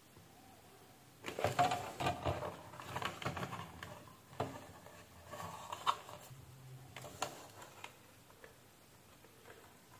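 Small handling noises as an LED driver circuit board and its wires are moved about in a plastic ceiling-light housing: an irregular run of light clicks, rattles and scrapes from about a second in until near the end, with a few sharper clicks.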